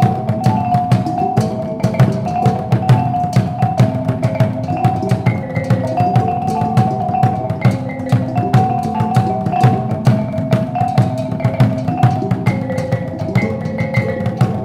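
A kulintangan ensemble of bossed gongs playing: the row of small kulintang gongs carries a melody over the dabakan drum and the low, ringing hanging agung and gandingan gongs. The strokes come in a fast, dense rhythm.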